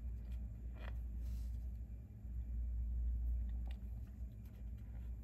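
Steady low rumble with a few faint, small clicks as tiny resin-printed teeth are handled and pressed into a small resin figure with the fingers.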